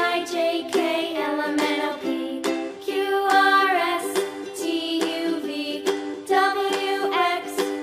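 Background music: a melody of short notes over held lower notes.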